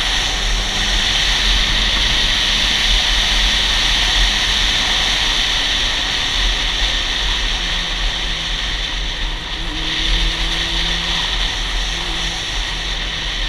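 Honda CB400 Super Four's inline-four engine running at a steady cruise while riding, heavily overlaid by wind rushing and buffeting over the camera microphone.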